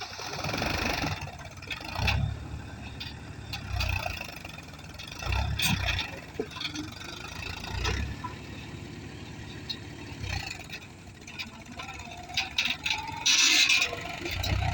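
Tractor diesel engine running, its rumble swelling and easing about every two seconds, with scattered knocks and clanks.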